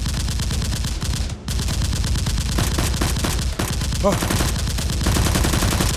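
Rapid automatic gunfire, a dense unbroken run of shots with a brief pause about a second and a half in.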